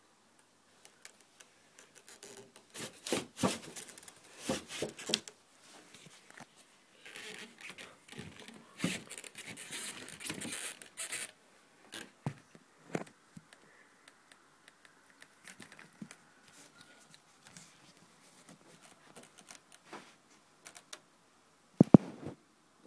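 Irregular scraping, rustling and clicking handling noise, busiest in the first half, with a sharp double click near the end.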